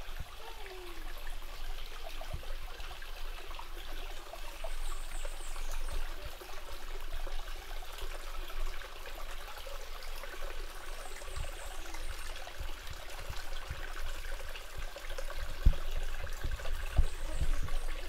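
Stream water running and trickling over rocks, a steady rushing, with occasional soft low thumps.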